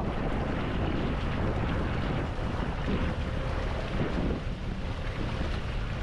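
Wind buffeting the microphone over a steady rush of open sea water around a small boat.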